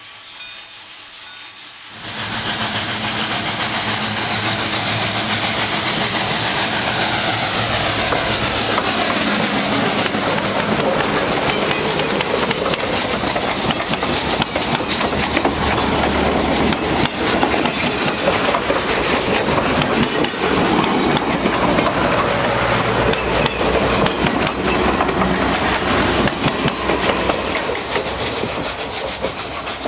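Southern Railway 2-8-0 steam locomotive No. 401 and its train passing close by. It turns suddenly loud about two seconds in, then the cars roll past with wheels clicking over the rail joints, fading near the end as the train moves away.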